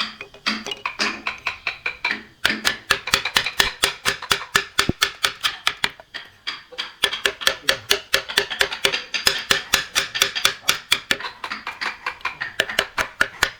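Rapid, even knocking of a tool striking wood, about six strikes a second, pausing briefly twice.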